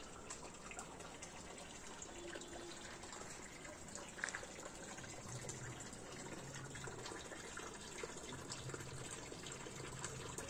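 Faint, steady trickle of running water, with a low hum that comes and goes in the second half.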